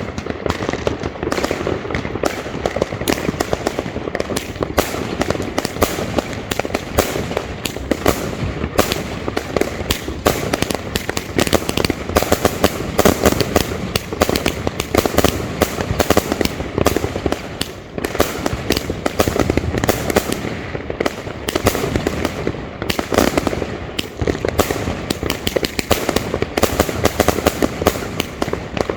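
A Svea Fireworks 'Spartacus' 76-shot battery cake (20/25/30 mm tubes) firing: a rapid, continuous barrage of shots and aerial bursts with crackle, with the tempo varying.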